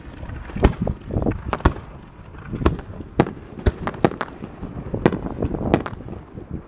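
Aerial fireworks shells launching and bursting: an irregular run of about a dozen sharp bangs, each with a short echo.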